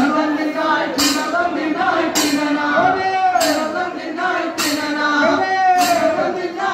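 Kummi folk dance song: a voice singing a bending melodic line over sharp, jingling strikes that keep the beat about once a second.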